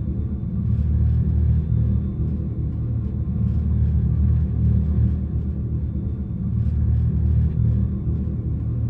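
Dodge Charger Daytona SRT concept's Fratzonic chambered exhaust, the speaker-driven sound system of this electric car, giving a steady deep rumble that swells slightly at times.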